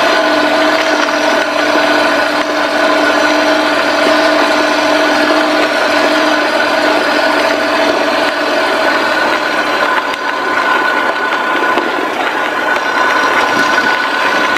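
Kei truck on the move, heard from beside its front wheel: steady engine and road noise with a few steady whining tones over it, one of which fades out about nine seconds in.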